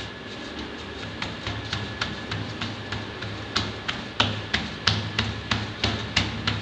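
Hands patting and pressing finger-millet bhakri dough flat in a flour-dusted steel plate: a run of irregular soft taps and slaps, over faint background music.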